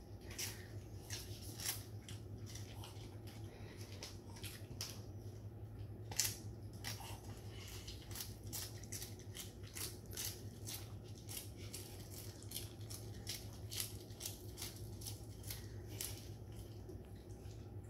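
Poodle chewing a fresh lettuce leaf: an irregular run of crisp crunching bites, a few a second, with one louder crunch about six seconds in, over a faint steady low hum.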